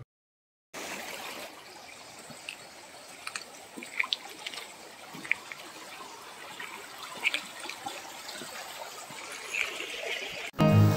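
Floodwater trickling and running over a muddy path, an even watery hiss starting just under a second in, with scattered faint ticks.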